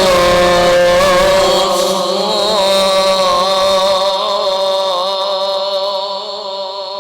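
A male Quran reciter holding one long, ornamented melismatic note in the melodic mujawwad style of recitation, its pitch wavering. The note grows quieter toward the end.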